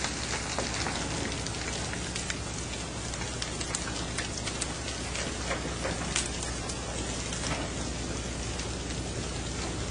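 Fishing boat's engine running steadily under a constant rush of water and spray along the hull, with frequent sharp taps and slaps scattered through it as pole-caught fish are flipped onto the deck.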